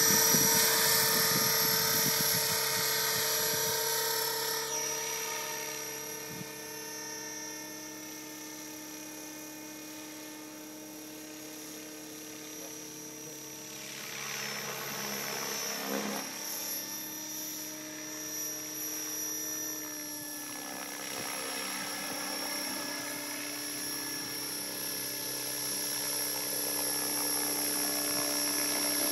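Align T-Rex 600 radio-controlled helicopter in flight: a steady whine of its motor and rotor. It fades as the helicopter climbs away over the first several seconds, swells with a brief rushing swish about halfway through, and grows louder again as it returns to a low hover near the end.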